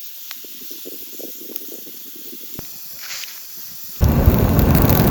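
Weak campfire hissing faintly with scattered small crackles, then about four seconds in a person starts blowing hard on the embers to revive the dying fire: a sudden loud rush of breath.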